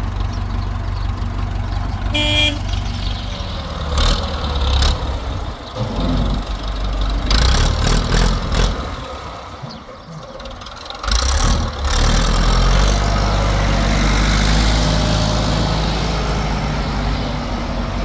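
ITM 285 (Massey Ferguson 285) tractor's four-cylinder diesel engine running, with a brief horn toot about two seconds in. The engine sound drops away for a moment around the middle, then runs louder and steady as the tractor gets under way with its trailer.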